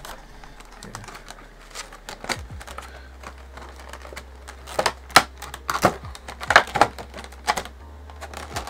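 Cardboard box and plastic packaging of a Pokémon trading-card box being handled: scattered clicks, taps and crinkles, sparse at first and busiest and loudest past the middle.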